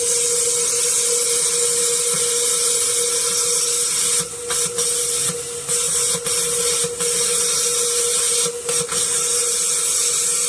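A power tool running with a loud high-pitched hiss over a steady hum, dipping out briefly several times in the middle.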